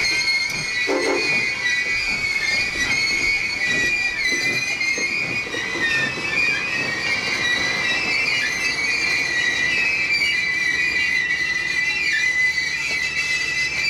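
Railroad passenger cars' wheels and brakes squealing: a loud, high, steady screech of several wavering tones as the train rolls into the station. A low steady hum joins near the end.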